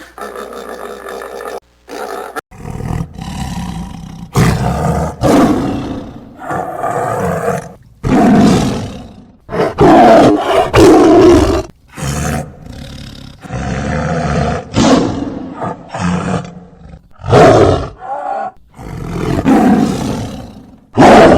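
A large wild animal roaring over and over in short, loud bursts that start about two seconds in.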